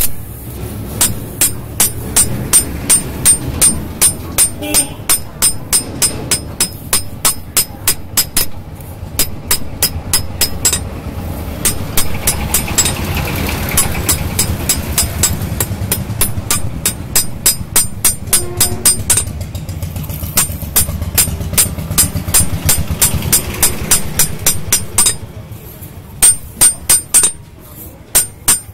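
Hand hammer striking a knife blade held in tongs on an anvil: a steady run of sharp, ringing metal-on-metal blows at about three to four a second, pausing briefly about nine seconds in and again near the end.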